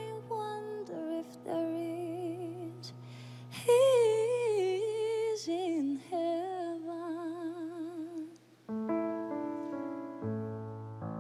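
A woman sings a slow ballad in long, held notes with strong vibrato over sustained piano chords. Her voice stops about eight seconds in, leaving the piano chords ringing on alone.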